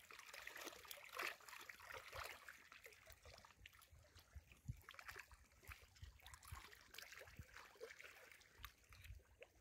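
Near silence, with faint, irregular lapping of river water.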